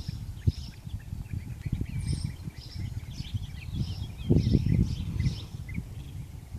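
Small birds chirping over and over, over a low gusting rumble of wind on the microphone that swells loudest about four to five seconds in.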